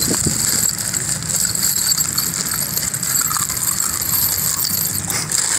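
A handful of loose iron nails rattling and clinking as a hand scoops them out of a plastic bag, over a steady high hiss and low hum.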